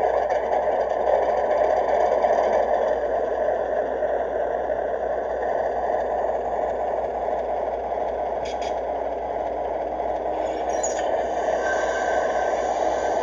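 3D-printed model train running along the track: a steady whir and rattle of the motor and wheels.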